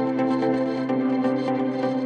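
Background music: a calm ambient instrumental with sustained notes and a steady pulse.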